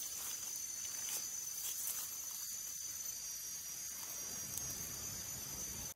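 Steady high-pitched insect chorus in forest undergrowth: a thin, even hiss with a few faint clicks.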